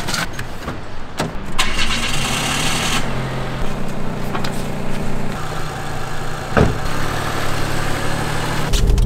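A small hatchback's engine idling steadily, with a few knocks in the first two seconds and a single sharp thump about six and a half seconds in.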